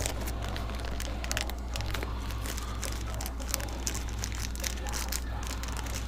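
Light crinkling and irregular small clicks of plastic parts bags and small brake parts being handled, over a steady low hum.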